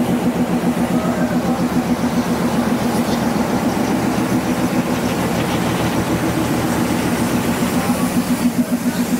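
A heavy engine running steadily, with a low hum and a fast, even pulse.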